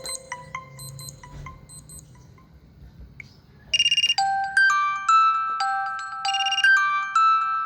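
Vivo V7+ smartphone alarm tones: the short notes of one tone fade out over the first two seconds. After a pause, about three and a half seconds in, the next tone starts, a louder electronic melody of held notes and bright chimes that repeats.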